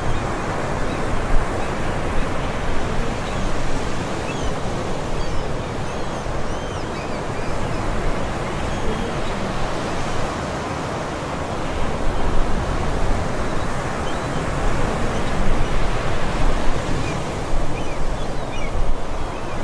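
Ocean surf washing steadily ashore, rising and falling in gentle swells. Seagulls call faintly and intermittently in the first few seconds and again near the end.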